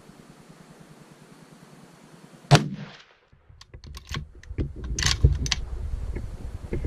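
A single loud gunshot about two and a half seconds in, ringing out briefly, followed by a run of sharp clicks and knocks.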